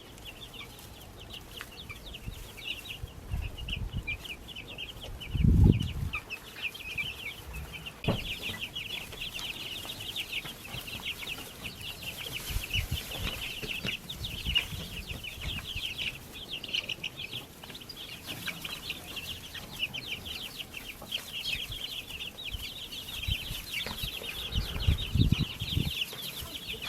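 A group of baby chicks peeping continuously, many short high cheeps overlapping. A low thump about five seconds in, and a few more near the end.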